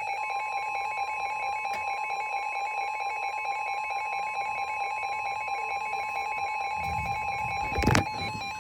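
Emergency Alert System attention tone on a NOAA Weather Radio broadcast, a steady two-pitch alarm tone held without a break, signalling that a warning is about to be read. Near the end there is a low thump and a sharp click.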